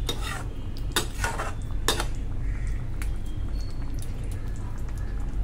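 Metal spoon clinking and scraping against a nonstick kadai while stirring a thick paneer gravy, with a few sharp knocks in the first two seconds.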